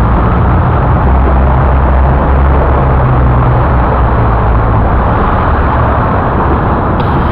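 Motor vehicle engine running with a loud, steady low drone, its pitch lifting slightly for a few seconds in the middle.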